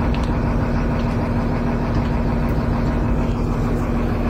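Volvo 290 excavator's diesel engine running steadily, heard from inside the cab, with a constant low hum. The engine keeps its revs, but the machine does not respond to its controls, a fault the mechanic traces to a stuck solenoid.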